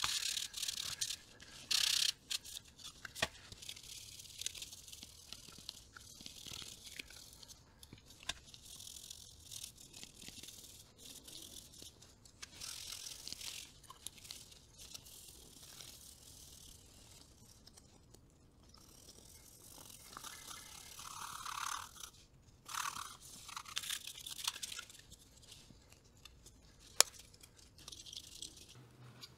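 Cloth rubbing and wiping over the red plastic case of a 1964 Panasonic R-8 transistor radio: a scratchy, high rustle in uneven strokes, with a single sharp click near the end.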